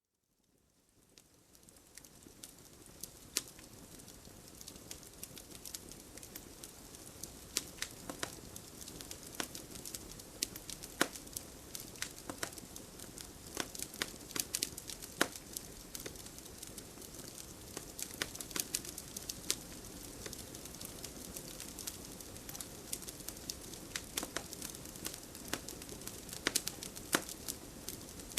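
Fire in a fireplace crackling, with irregular sharp pops over a steady soft hiss, fading in from silence over the first couple of seconds.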